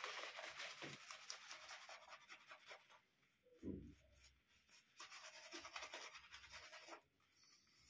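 Shaving brush worked fast through soap with added water to build a lather: a faint, rapid scratchy swishing in two spells, with a short low thud and a pause in the middle.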